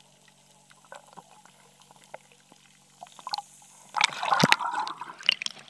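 Water heard underwater: faint scattered ticks at first, then loud bubbling and gurgling starting about four seconds in.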